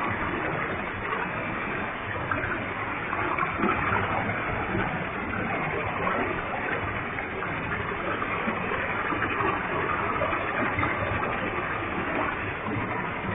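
Waterfall with a heavy flow of water pouring and splashing, a steady, unbroken rush.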